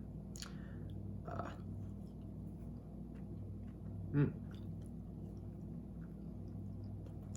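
A person chewing soft french fries, with faint mouth clicks and a short hum of the voice about four seconds in.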